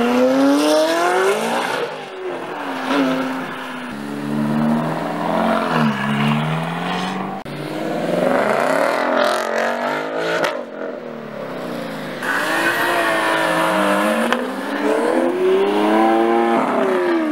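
Sports cars accelerating hard past one after another: a McLaren, a Ford Mustang and a V12 Lamborghini Aventador. Each engine note climbs steeply in pitch as it pulls away, several times over, with the loudest climbs near the start and near the end.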